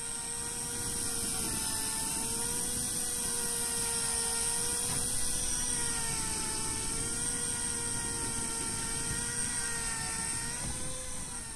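Shimano Beast Master 9000 electric fishing reel's motor whining steadily as it winds line in, its pitch dipping and recovering a few times under changing load.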